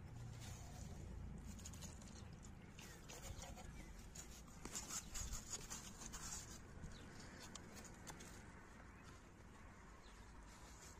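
Faint rustling, scraping and crackling of gloved hands working loose garden soil while setting a seedling into a planting hole. The small crackles are busiest in the middle, then ease off.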